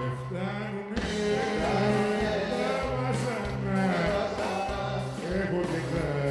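A male singer performing a Greek song live, with bouzouki accompaniment.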